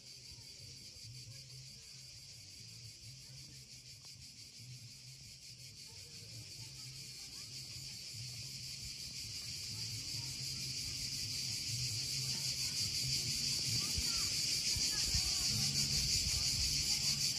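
Cicadas singing: a steady, high-pitched chorus that grows gradually louder, over a faint low hum.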